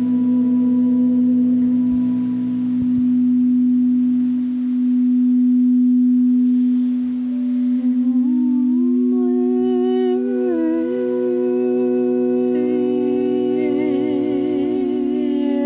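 Slow drone music: one low note held steady throughout, with higher sustained tones over it that slide between pitches about halfway through and waver with vibrato near the end.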